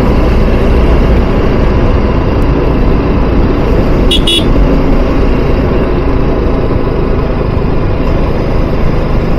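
TVS Apache RR310 motorcycle being ridden at a steady pace: wind rushing over the microphone over the steady running of its single-cylinder engine. A short, high-pitched double beep comes about four seconds in.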